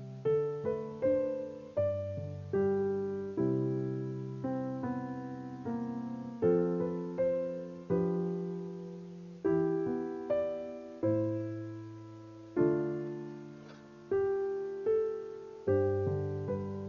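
Background piano music: a slow, gentle piece of chords and melody notes, each struck about once a second and left to ring and fade.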